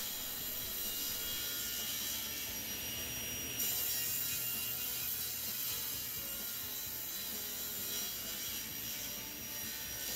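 Grizzly table saw running, its blade trimming the edge of an end-grain hardwood cutting board pushed through on a crosscut sled; the cutting noise gets louder and brighter about three and a half seconds in.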